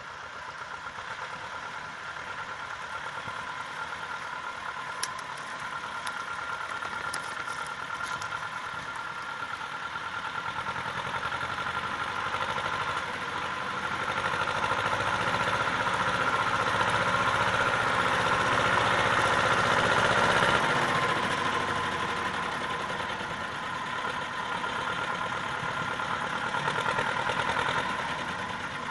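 Vladimirets T-25 tractor's air-cooled two-cylinder diesel engine running as the tractor drives over rough, overgrown ground. It grows steadily louder as it approaches, is loudest a little past halfway, eases briefly, then rises again near the end.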